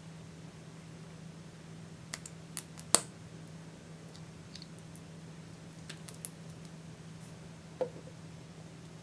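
Lip gloss tube being opened and its applicator wand used: a few small plastic clicks, the loudest about three seconds in, more light clicks around six seconds, and a duller knock near the end, over a low steady hum.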